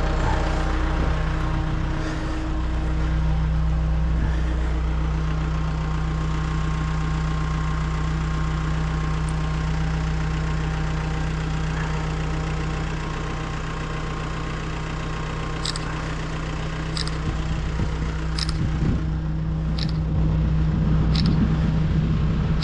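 Hino rollback tow truck's diesel engine idling steadily, a constant low hum. In the last few seconds there is a series of short high clicks, about one a second.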